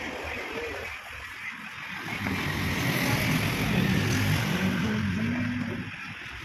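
A motor vehicle engine running over a steady background hiss. It grows louder from about two seconds in, its pitch rising and falling, and fades again near the end.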